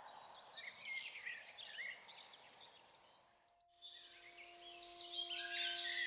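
Dawn chorus of small songbirds, faint, with many quick chirps and falling notes. About three and a half seconds in the sound briefly drops out. Then a soft, sustained musical drone comes in and the birdsong grows louder and denser.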